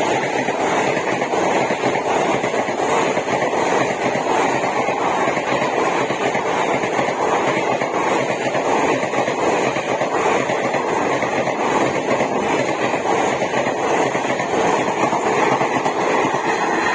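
A train rushing past at speed: a steady, loud noise of wheels on rails as the coaches go by.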